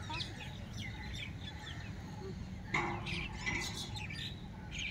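Birds chirping in many short, quick calls over a steady low background hum, with a brief louder sound a little under three seconds in.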